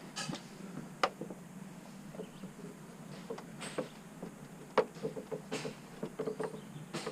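Footsteps and gear rustling, with scattered short knocks and a few sharp clicks, the sharpest about a second in and just before five seconds.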